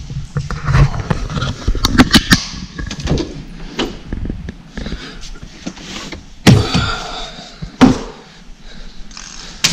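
Clicks, rattles and knocks of a folding baby stroller being handled and unfolded, with two louder thumps about six and a half and eight seconds in.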